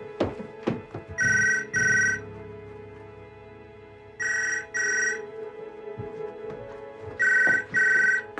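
Telephone ringing in the British double-ring pattern: three pairs of short rings, each pair about three seconds after the last.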